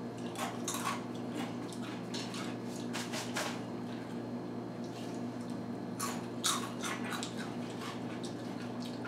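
Crunching of crunchy snack chips being chewed, with small crackles and clicks from chips picked off plates, in clusters near the start, around three seconds in and around six to seven seconds in. A steady low hum runs underneath.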